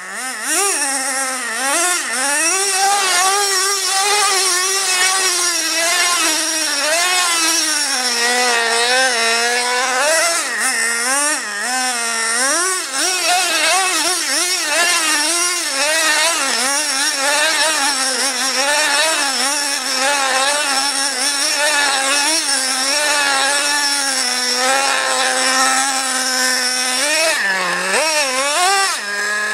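Traxxas Revo 2.5's small two-stroke nitro engine buzzing at high revs as the RC monster truck is driven, its pitch swinging up and down with the throttle the whole time. It drops back to a steady idle at the end.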